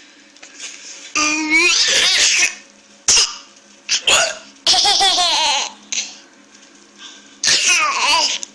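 A baby laughing in four bursts of high, wavering peals, with a short sharp sound about three seconds in.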